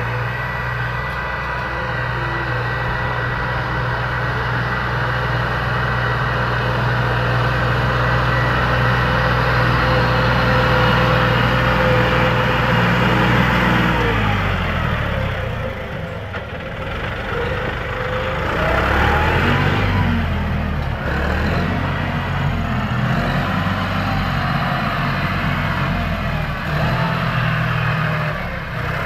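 John Deere 5065E tractor's diesel engine running under load while pulling a seven-disc plough. It grows louder as the tractor comes close about halfway through, then its pitch drops and wavers as it moves off.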